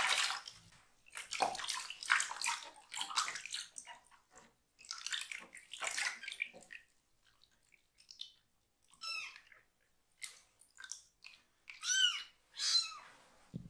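Water splashing and sloshing in a shallow plastic tub as a young kitten's hindquarters are washed, then the kitten meowing loudly a few times in the last few seconds.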